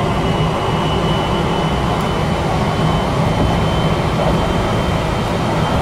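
Kintetsu electric train running at speed, heard from inside the passenger car: a steady rumble of wheels on rail with a thin, steady high tone above it.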